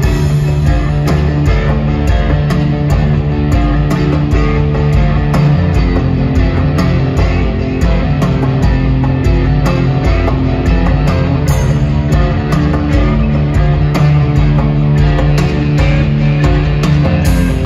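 Progressive metal band playing live, heard from within the audience: distorted electric guitar and bass holding low notes over a steady drum beat.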